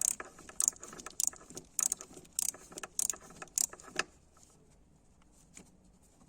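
Light metallic clinks and jingles, about two a second, that stop about four seconds in.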